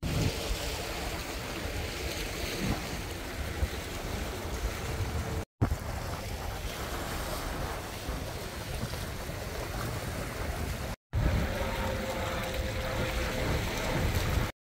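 Sea waves washing over a rocky shore, with wind buffeting the microphone, broken twice by a short gap.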